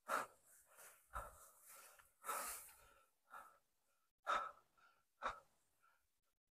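A hiker breathing hard close to the microphone, short breaths about once a second.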